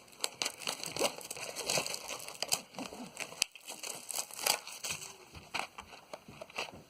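Plastic shrink wrap crinkling and crackling in the hands in irregular bursts, as it is pulled off a trading-card box.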